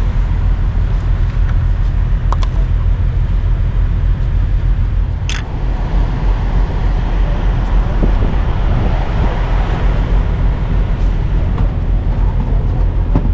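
Steady low rumble of an idling engine, with one sharp click about five seconds in.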